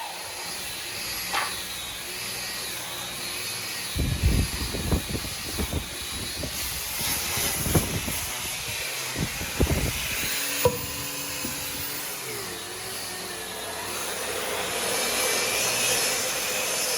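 Woodworking power tool running steadily with a hiss and a wavering high whine, broken by several clusters of knocks on wood.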